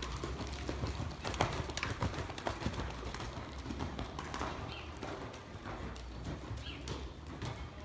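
Horse's hoofbeats at a canter on the soft dirt footing of an indoor riding arena: an uneven run of dull thuds, several a second.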